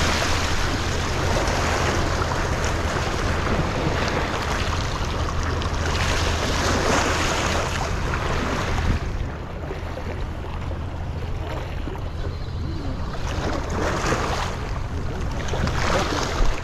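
Small waves washing against shoreline rocks, with wind on the microphone. The wash is louder for the first nine seconds, then eases, with two short surges near the end.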